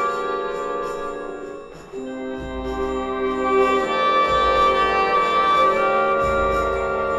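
Symphony orchestra playing sustained chords. The sound thins out and dips just before two seconds in, then a fuller chord enters with deep bass notes.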